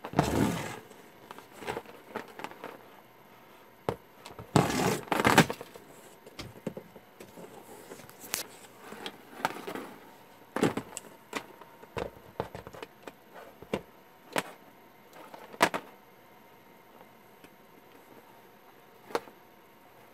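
Handling noise: irregular clicks, taps and short rustling bursts, the loudest at the start and around five seconds in, with no steady hum or motor running.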